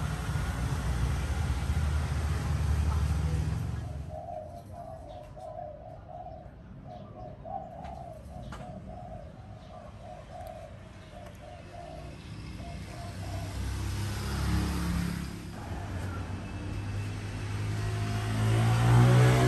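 Low rumble of a passing road vehicle at the start, fading after a few seconds. Then a dove cooing in a run of short repeated notes over quiet background. Near the end an engine grows louder and rises in pitch as another vehicle comes close.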